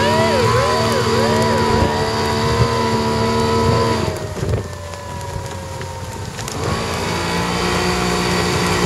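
A small boat's outboard motor running with wind and water noise, under a yelping siren from a passing navy patrol boat. About a second in, the yelping gives way to one long, slowly falling tone. About four seconds in the motor noise drops off, and it picks back up near seven seconds.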